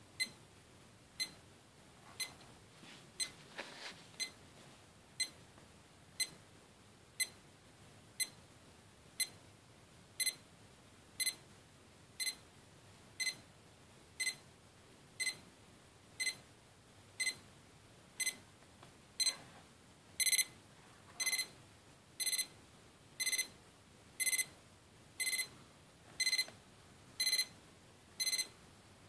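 Alarm of a FanJu FJ3523 LED digital alarm clock going off as the time reaches the set minute: a high electronic beep about once a second. About two-thirds of the way through, the beeps become louder and longer.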